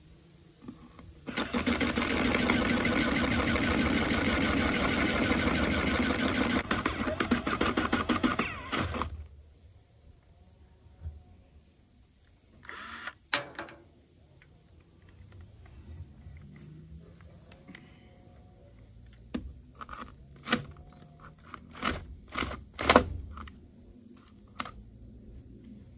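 An 18-volt cordless drill spins a fly cutter through an aluminum plate. It runs loud and steady from about a second in until about nine seconds, while the cutter keeps loading up with chips. After that come a few scattered sharp knocks and clicks.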